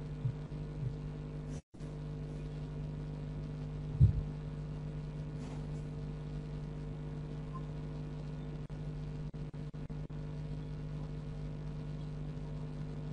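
Steady electrical mains hum with a few fixed low pitches. A single low thump comes about four seconds in, and the hum cuts out briefly just before two seconds and several times around nine to ten seconds.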